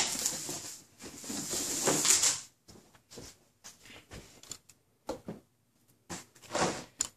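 A cardboard shipping box being opened by hand. A sharp click at the start, then a rasp of tape and cardboard being torn for about a second and a half. After that come scattered light knocks and rustles as the flaps are handled, with a louder rustle near the end.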